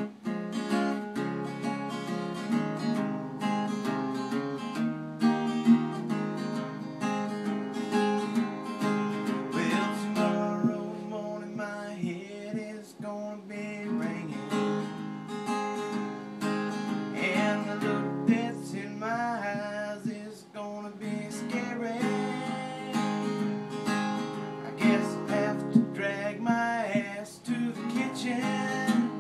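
Acoustic guitar strummed steadily, chord after chord in a rhythmic pattern.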